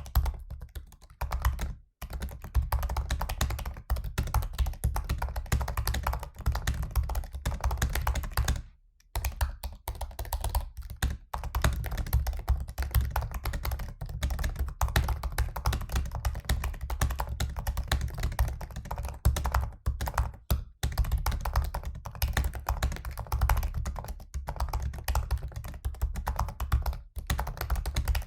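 Fast typing on a 2017 MacBook Pro laptop keyboard: a dense, rapid stream of key clicks, broken by short pauses about two and nine seconds in.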